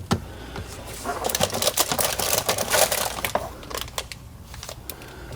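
Irregular light clicks and taps of plastic trim pieces and hand tools being handled during disassembly of a car's front trunk.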